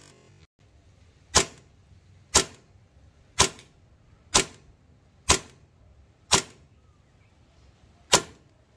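WE Tech T-Rex Hi-Capa 5.1 gas blowback airsoft pistol firing seven single shots, about one a second, with a longer pause before the last. Each shot is a sharp report of gas and the slide cycling, with the newly fitted 150% recoil and hammer springs.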